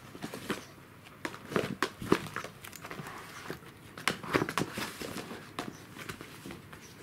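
Cardboard tissue box crinkling and knocking against the floor as a kitten pushes into it and a corgi noses at it and steps on it, in irregular scrapes and taps with busier spells about a second and a half in and again around four seconds.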